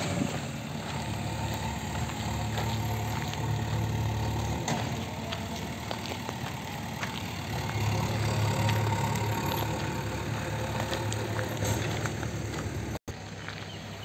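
An engine running steadily with a low hum, under general outdoor noise. The sound drops out for an instant near the end.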